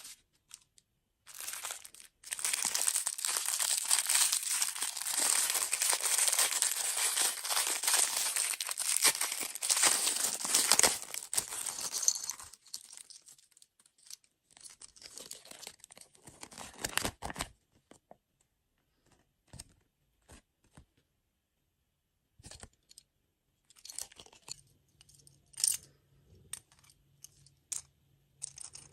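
A crinkly wrapper being torn and unwrapped by hand: about ten seconds of continuous loud tearing and crinkling, then sparser rustles and small clicks as it is handled.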